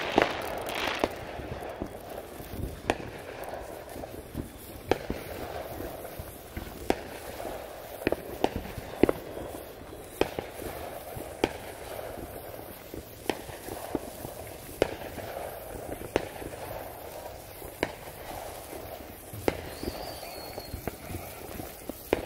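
Firework fountain spraying sparks: a steady hiss broken by sharp, irregular cracks about once a second.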